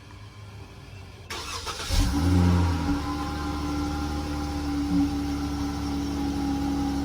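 Car engine with a mid-muffler-deleted exhaust starting about two seconds in, flaring briefly, then settling into a steady idle.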